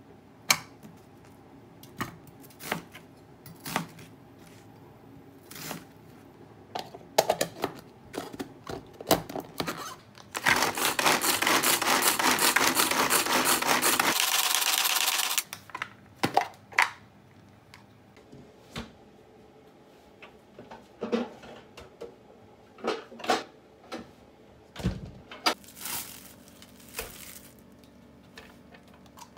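Kitchen knife knocking on a cutting board as an onion is cut, in separate strokes. About ten seconds in, a hand-pull manual food chopper is pulled fast for about five seconds, a loud continuous rattling whir as its blades mince the onion, then scattered knocks and clatter of handling.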